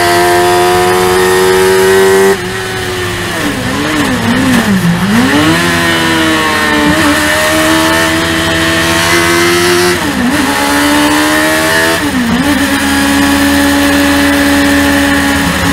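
Racing car's motorcycle-derived 1000 cc engine revving hard, cut sharply when the driver lifts for braking about two seconds in, with blipped downshifts into a slow corner. It then pulls out of the corner, the pitch rising and dropping at upshifts around ten and twelve seconds, and settles into a steady note at part throttle near the end.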